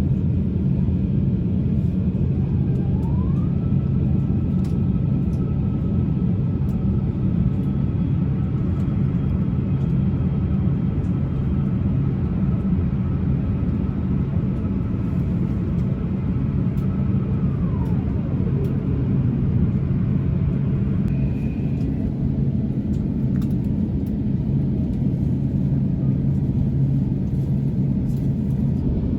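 Cabin noise inside an Airbus A350-1000 in operation: a steady low rumble. A thin mechanical whine glides up about 3 seconds in, holds level, and glides back down about 18 seconds in.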